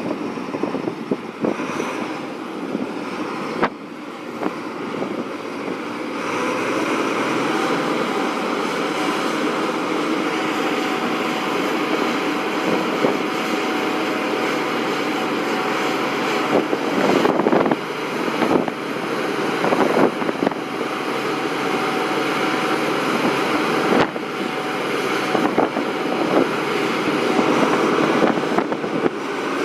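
Heavy machinery running: a steady engine drone with a faint held whine, and a few sharp knocks in the second half.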